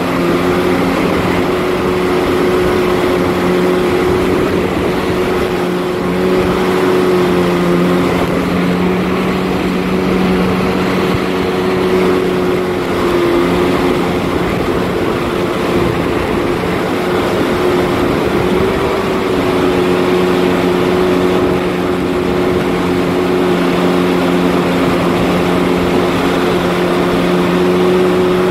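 Jet ski engine running steadily at towing speed, pulling a water skier, over the rush of water in its wake. The engine holds one pitch that wavers slightly about halfway through.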